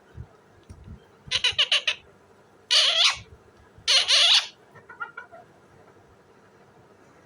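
Ringneck parrot calling: a quick rattling chatter, then two loud harsh squawks a little over a second apart, followed by a few faint chirps.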